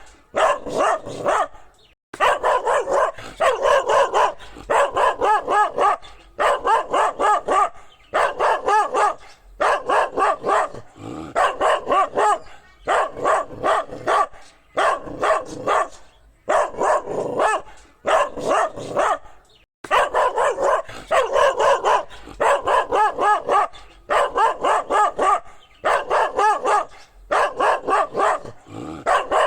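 Dog barking in quick runs of several barks, with short breaks between the runs.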